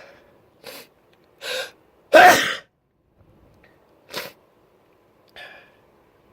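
A person's uncovered sneeze: two short, sharp in-breaths, then one loud sneeze about two seconds in, followed by two shorter, quieter breath sounds.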